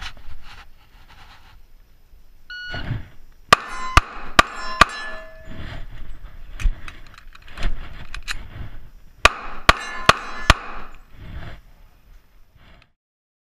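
Kimber Custom TLE/RL II 1911 pistol firing two quick strings of four shots each, about five seconds apart, with steel plates ringing after the hits. A short beep sounds about a second before the first string.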